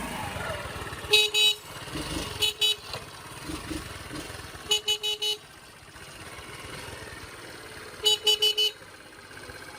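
Electric horn of a restored Honda Super Cub 81 motorbike sounding in short toots: two, then two, then four, then four in quick succession, over a low steady rumble.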